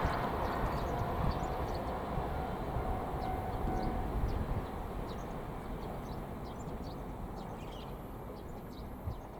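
JR Shikoku 8000 series electric train running away along the track, its wheel-and-rail running noise fading steadily.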